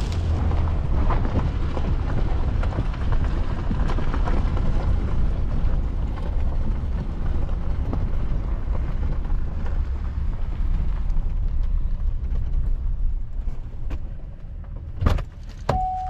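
Low, steady rumble of a pickup truck heard from inside the cab. About a second before the end there is a sharp thump as the passenger door opens, and then the truck's steady door-open chime starts.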